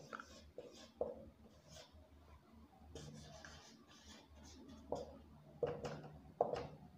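Handwriting: a run of short, irregular writing strokes, faint, with a few louder strokes near the end.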